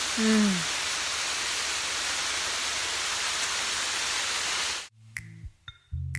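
Waterfall rushing as a steady, even noise, cut off suddenly about five seconds in, when music with bright chime-like notes over a low bass starts.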